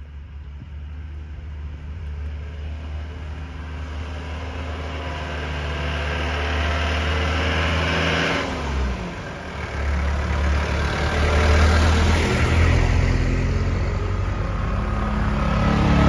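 Motor vehicle engine growing louder as it draws near. Its note falls and drops away briefly just past halfway, then rises again, loudest near the end.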